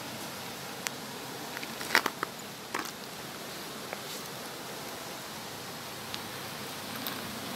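A metal ladle stirring stew in a frying pan over a wood fire, clinking against the pan several times, loudest about two seconds in, over a steady background hiss.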